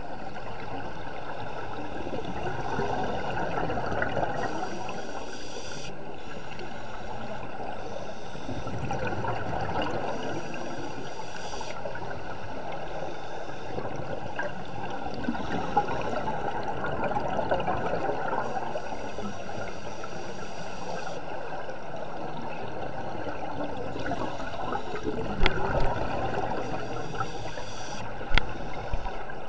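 Underwater bubbling and gurgling of scuba divers' exhaled air, a steady rushing wash that swells and eases, with two sharp clicks near the end.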